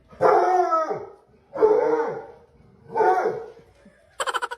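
A dog vocalizing in three drawn-out, falling calls about a second and a half apart. Near the end a fast run of short pulses begins.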